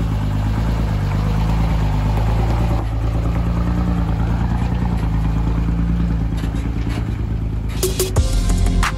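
Diesel truck engine idling steadily, with a few sharp clicks near the end.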